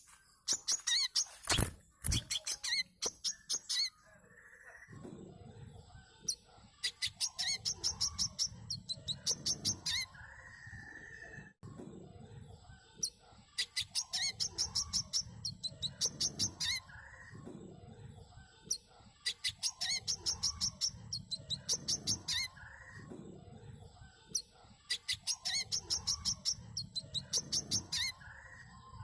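Brown-throated sunbird (manggar) song: repeated bursts of rapid, very high-pitched chirping notes, each burst lasting two or three seconds and coming about every six seconds, over a lower background of fainter calls and noise.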